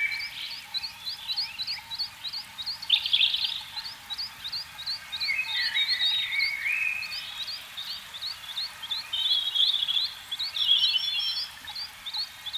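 A chorus of frogs calling: a steady train of short high chirps, about three a second, with irregular lower croaking and trilling calls overlapping them.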